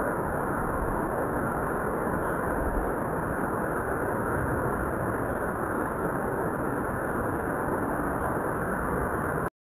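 Muddy floodwater rushing down a street as a torrent: a steady roar that cuts off suddenly near the end.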